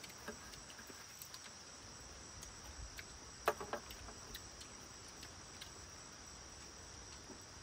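A steady, high-pitched chorus of insects trilling, with scattered faint clicks and one sharper click about three and a half seconds in.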